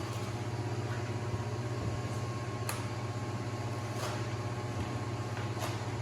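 Steady low mechanical hum, like a fan or heater running. Three short swishes about a second or so apart come from working the perforated vinyl film and squeegee on the window.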